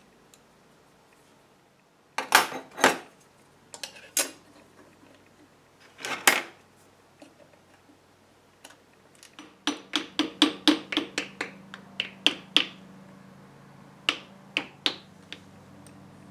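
Small metal clicks and knocks as the end housing of an old electric motor is fitted and fastened by hand: a few scattered knocks, then a quick run of about a dozen ticks, then three more near the end.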